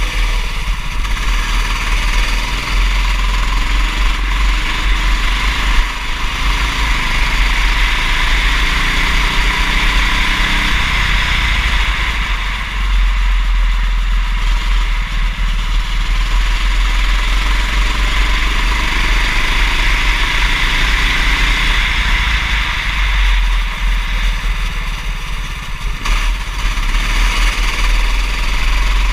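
Go-kart engine running continuously, its pitch rising and falling as it speeds up and slows for corners. Under it runs a constant deep rumble.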